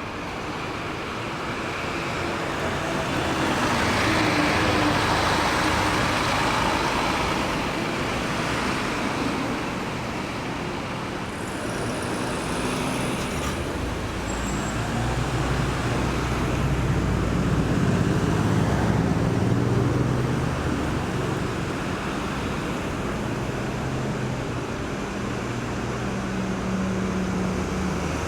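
Road traffic at a roundabout: a vehicle sweeps past with tyre noise in the first third. From about halfway, a heavy vehicle's engine, such as a bus or lorry, runs with a low drone.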